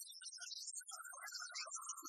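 Background music: a light instrumental tune of short, separate notes.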